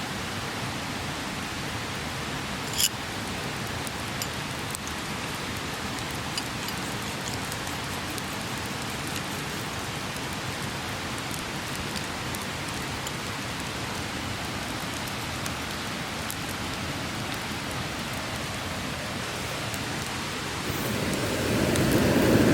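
Steady rushing of a clear mountain stream, with a sharp click about three seconds in and a few faint ticks. Near the end a louder, lower sound swells up over the water.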